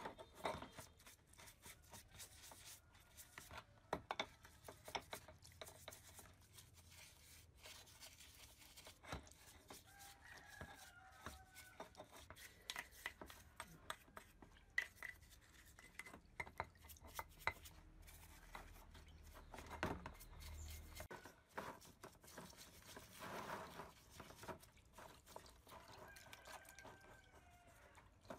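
Faint scattered clicks, scrapes and light sloshing as the metal parts of an old spring balance are scrubbed by hand in a basin of dark cleaning liquid.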